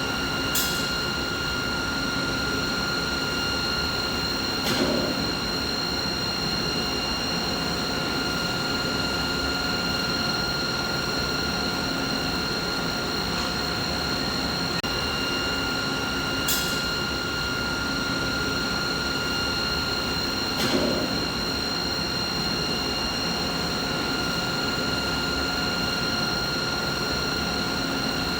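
Steady machinery noise: a broad hum carrying several constant whining tones, broken four times by a brief click or knock, with the pattern repeating about every 16 seconds like a loop.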